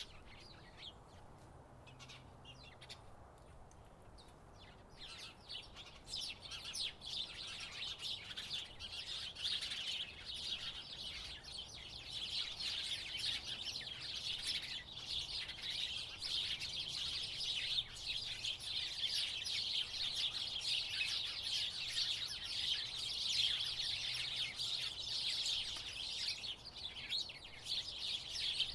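House sparrows chirping: scattered chirps at first, then about five seconds in a dense, continuous chorus of rapid chirps from many birds.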